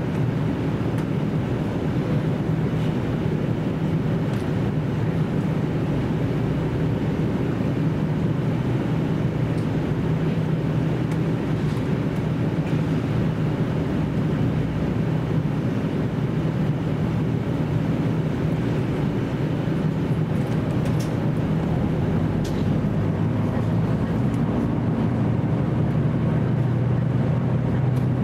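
Onboard running sound of a JR Central KiHa 75 diesel railcar: the diesel engine's steady drone under wheel and rail noise, with a few faint clicks in the second half.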